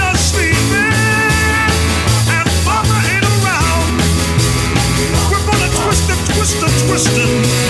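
Rock music playing, with a steady beat and a bending melodic lead line over it.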